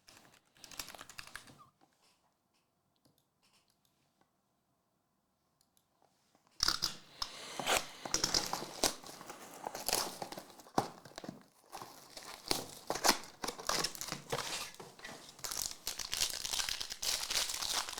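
Plastic wrapping on a box of trading cards and its packs being torn open and crinkled, with cards handled. There is a brief rustle at the start, then near silence, then steady, loud crinkling and tearing from about six and a half seconds in.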